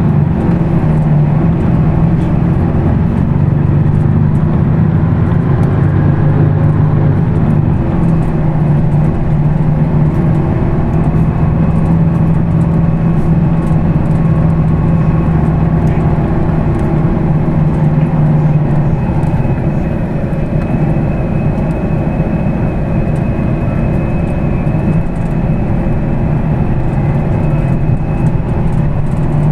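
Weichai WP6NG210E50 natural-gas engine of a Higer KLQ6935GC5 city bus running with a steady deep drone. After about twenty seconds the drone eases slightly and a faint high whine comes in.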